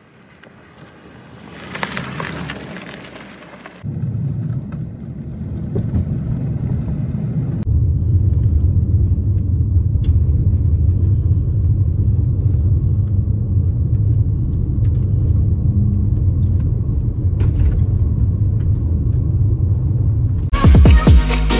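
An SUV approaching over a gravel-covered bridge deck, its tyre and engine noise swelling to a peak about two seconds in. Then a steady low rumble of tyres on a gravel road, heard from inside the cabin, with music coming in just before the end.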